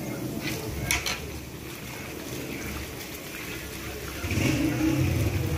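Gulab jamun balls deep-frying in a large pan of hot oil, with a steady sizzle and a few sharp clicks about a second in. A louder low rumble joins from about four seconds in.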